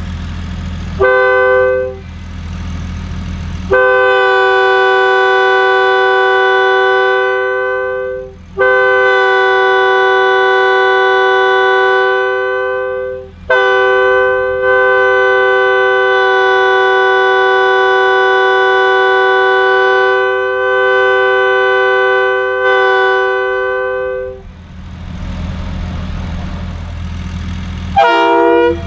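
Leslie S2G two-chime locomotive air horn blown on compressed air, two notes sounding together. It gives a short toot, then three long blasts, the last about ten seconds long. Near the end a different horn, a Leslie RS3K hybrid, starts with a short blast.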